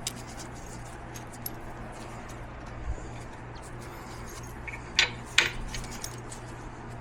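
Small metal hardware clinking as a washer and bolt are handled and fitted, with two sharper metallic clicks about five seconds in.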